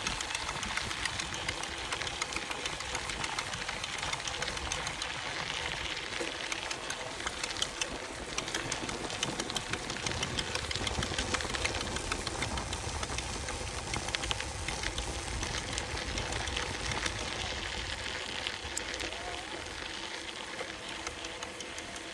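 FAZUA Ride 60 e-bike mid-drive motor running under pedalling, with a faint steady hum and a fast, continuous stream of small clicks over rumbling ride noise. The clicking is a fault that developed in the drive unit after about 450–500 km and does not throw any error code.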